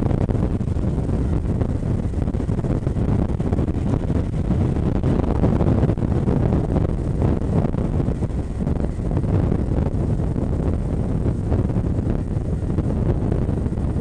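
Steady low rumble of a widebody twin-jet airliner's engines as it lands, with gusty wind buffeting the microphone.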